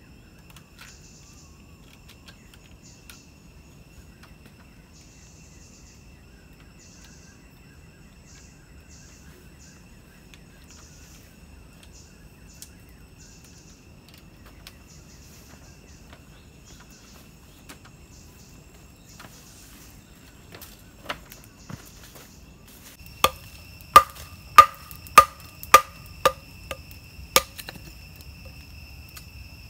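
Insects trilling steadily in the forest. Near the end comes a run of about eight sharp, ringing blows of a tool striking wood, roughly two a second.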